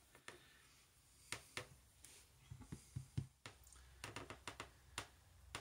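A scattering of faint, irregular clicks and taps from small brass lock pins and springs being handled and tipped out of a disassembled lock cylinder onto a wooden workbench.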